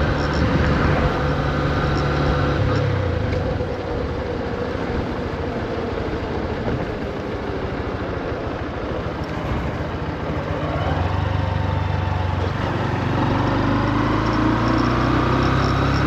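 Honda CB125F's 124 cc air-cooled single-cylinder engine on the road, kept at low revs while the new engine is run in. Its note falls as the bike slows over the first few seconds, goes quieter for a stretch, then climbs steadily as it accelerates through the last third.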